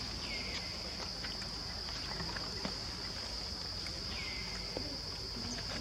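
Insects droning steadily on one high pitch, with two short high calls that glide down in pitch, one near the start and one about four seconds in, and a few faint clicks.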